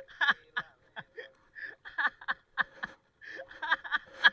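A man laughing in a run of short bursts, several a second, with a brief break about three seconds in.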